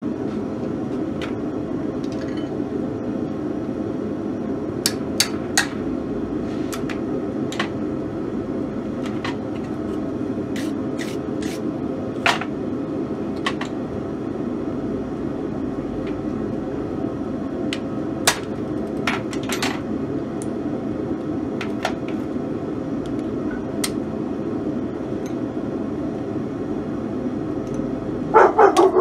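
A forge running with a steady roar, with scattered light clinks of steel tools on the anvil. Near the end a hammer strikes a steel letter stamp, held in vise grips on the red-hot bar, several quick ringing blows that are the loudest sound here.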